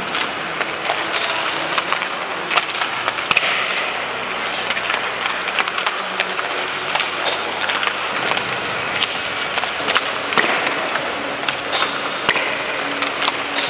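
Ice hockey warm-up on the rink: skate blades scraping and carving on the ice, with frequent sharp clacks of pucks and sticks striking the boards and each other at irregular intervals.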